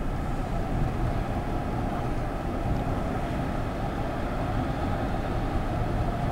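Steady road and engine noise of a car driving at speed, heard from inside the car.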